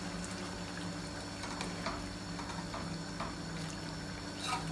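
Prawn stir-fry sauce simmering and bubbling in a frying pan as a spoon stirs it, with a few light scrapes of the spoon, over a steady low hum.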